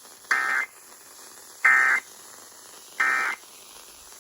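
Emergency Alert System SAME end-of-message data bursts: three short, harsh digital buzzes, each about a third of a second and spaced a little over a second apart. They signal the end of the alert message.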